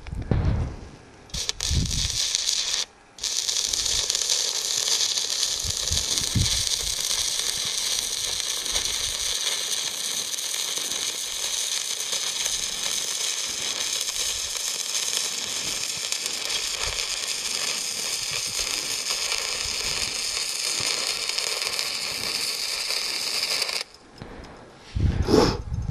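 Stick (shielded metal arc) welding arc from a SUZUKID IMAX80 welder: the arc catches and drops out twice in the first three seconds, then holds as a steady crackling hiss for about twenty seconds while a bead is run, cutting off suddenly near the end. A few low thumps follow.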